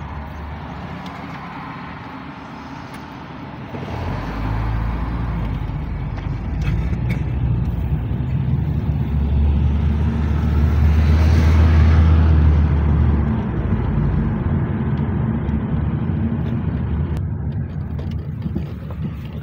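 Engine and road noise of a moving car heard from inside the cabin: a steady low rumble that grows louder about four seconds in, peaks around the middle, then eases off.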